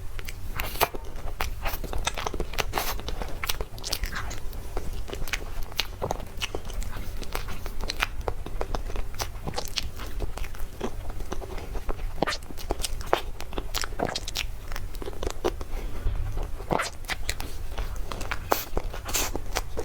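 Close-miked eating sounds of a person biting and chewing cake: dense, irregular wet clicks and small crunches, over a steady low hum.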